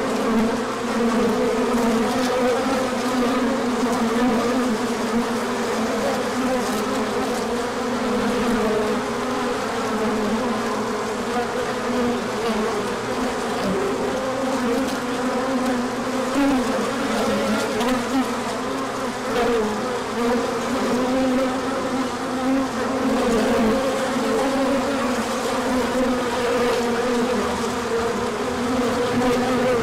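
Many honey bees buzzing around a hive that is open for inspection: a dense, steady hum that swells a little now and then.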